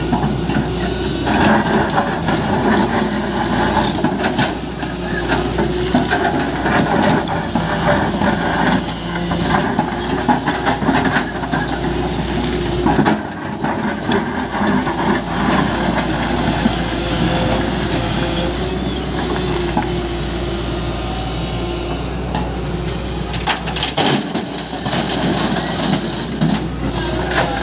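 Tata Hitachi EX200 Super excavator's diesel engine running under load as it works its hydraulics, with the steel bucket scraping through rocky earth and stones clattering. Near the end, rocks and soil drop into a steel tractor trolley.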